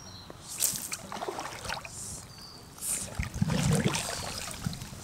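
Several short swishes and splashes of river water around a wading angler.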